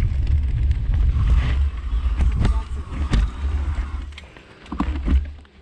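Wind rumbling on the microphone of a camera riding a mountain bike down a dirt trail, with sharp rattles and knocks from the bike over bumps. The wind dies down about four seconds in as the bike slows.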